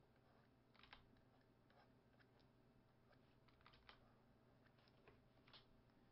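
Near silence with a few faint, scattered computer keyboard key clicks.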